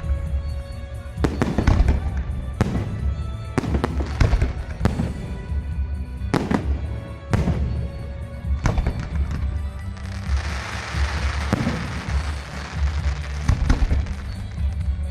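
Fireworks display: aerial shells bursting in quick succession, a sharp bang every second or so over a low rumble, with a dense stretch of crackling about ten seconds in.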